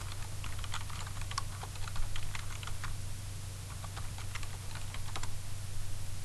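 Computer keyboard typing: a quick run of keystrokes for about three seconds, a short pause, then a briefer run of keystrokes.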